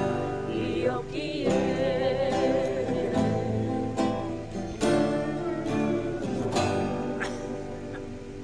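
Acoustic guitar strummed in slow chords, with a voice singing along and holding one long wavering note partway through. It gets quieter near the end.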